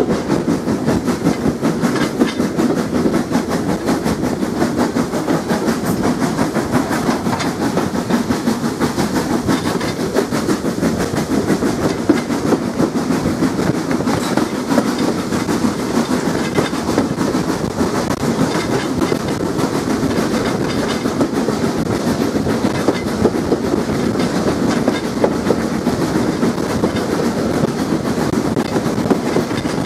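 Southern Railway S15 class 4-6-0 steam locomotive No. 847 running at speed, heard from its cab: a steady, busy running noise with constant clatter of wheels on the track.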